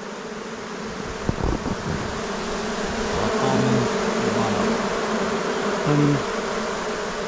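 A dense mass of honey bees humming steadily over the frames of an opened hive. The buzz swells a little mid-way. The colony is stirred up because its hive has been opened.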